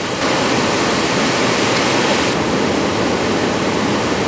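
Loud, steady rush of water pouring through a rocky gorge, a waterfall or torrent heard close by, stepping up a little just after the start.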